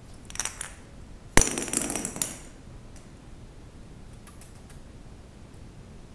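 A sharp knock followed by about a second of clinking, metallic-sounding clatter, with a few light clicks before it and again a few seconds later.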